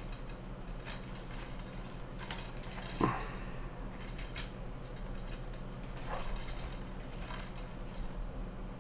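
Faint handling sounds of a cardboard fold-out DVD case being opened out panel by panel: a few soft taps and rustles, the clearest about three seconds in, over a steady low hum.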